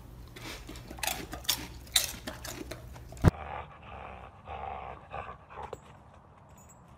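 A dog making noises, with a sharp click about three seconds in where one clip cuts to the next.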